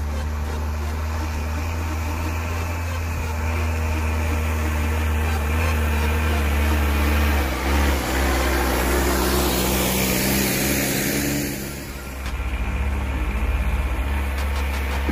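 Homemade tractor's VW 1.9 TDI four-cylinder turbodiesel running under load while pulling a three-furrow plough through the soil. It grows louder as the tractor drives up and passes close about halfway through, then eases off as it moves away.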